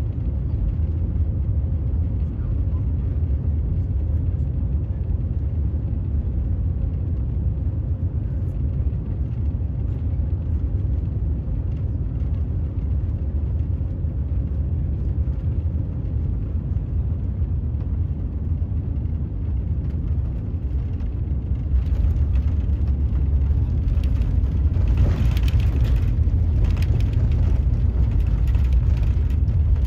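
Airbus ACJ319neo cabin noise on final approach, a steady low rumble. About two-thirds of the way through it grows louder and rougher as the jet touches down and rolls out on the runway.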